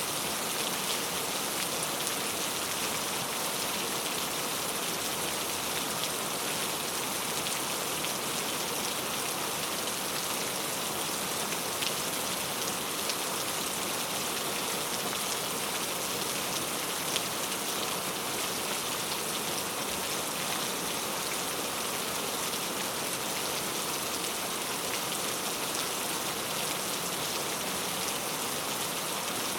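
Steady rain falling, an even hiss of many drops with small scattered ticks of individual drops.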